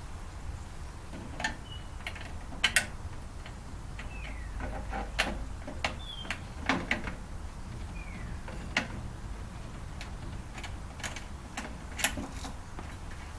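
Irregular clicks, knocks and brief squeaks of tools and metal parts being handled while a microwave oven is taken apart, over a steady low hum.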